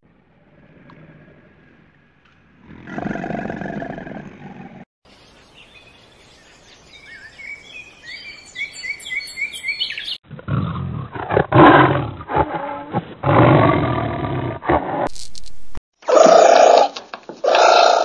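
A string of separate animal calls cut one after another. A short call comes a few seconds in, then a stretch of chirping, then loud roaring calls through the second half, broken off twice.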